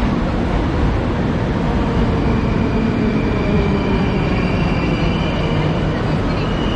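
Metro train running with a steady low rumble, a thin high whine from it coming in about two seconds in.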